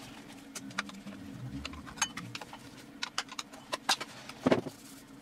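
Light metallic clicks, taps and scrapes of a steel screwdriver against a 3.5-inch hard drive's metal casing as the drive is turned over and pried at, with one slightly louder knock near the end.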